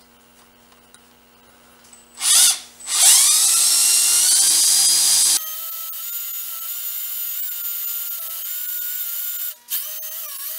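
Electric hand drill drilling a radial hole in an aluminium workpiece through a hardened steel drill bushing. After a short blip of the trigger about two seconds in, the motor spins up with a rising whine and runs steadily, stopping briefly near the end and starting again.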